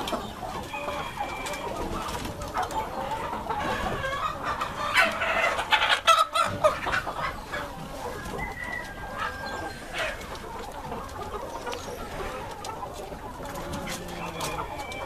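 A large flock of Light Brahma chickens clucking and calling over one another, with a rooster crowing among them. The loudest calls come about five to six seconds in.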